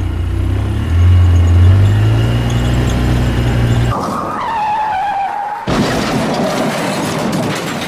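A motor running with a steady low hum that cuts off abruptly about four seconds in. A squeal-like tone that sinks in pitch follows, then a rougher, noisier stretch after another abrupt change.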